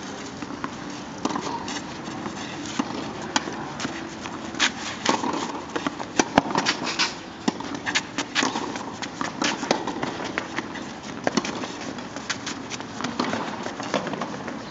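Tennis rally on a clay court: sharp pops of racket strings striking the ball and the ball bouncing, coming irregularly every second or so, along with players' footsteps on the clay.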